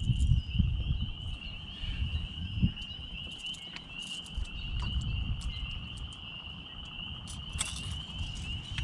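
Steady high-pitched trilling chorus of spring frogs. Wind buffets the microphone with a low rumble in the first second or two, and there are a few light clicks.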